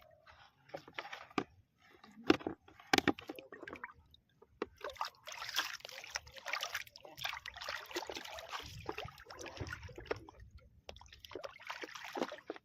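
Water splashing and sloshing: a few sharp splashes in the first few seconds, then a longer stretch of churning water, with another splashing burst near the end.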